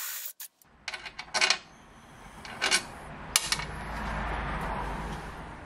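Several sharp metallic clinks of a steel hex bolt being set down on a steel plate and tried in its freshly drilled hole, over a low background rumble.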